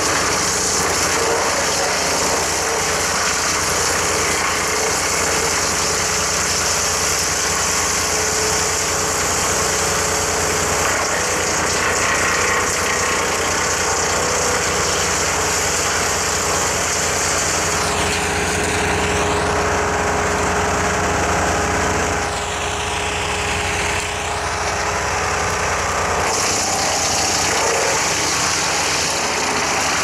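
Wood chipper running steadily while branches are fed into its infeed: a constant engine drone under the dense hiss of wood being chipped, dipping briefly a little after twenty seconds.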